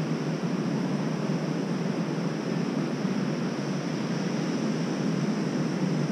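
Steady rush of ocean surf breaking on the shore, with wind.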